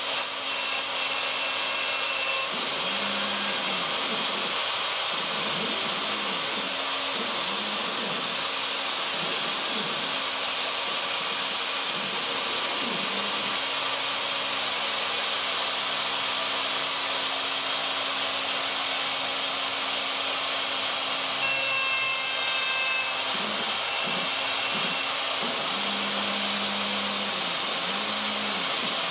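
Craftsman 2 hp router on a CNC Mogul machine, spinning steadily at high speed as its bit cuts into a cedar picket. Under it the machine's drive motors hum in low tones that repeatedly rise and fall in pitch as the head speeds up and slows along the cut.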